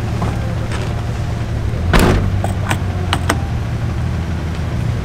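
Car engine idling with a steady low hum. About two seconds in there is a loud clunk, followed within the next second or so by a few sharp clicks.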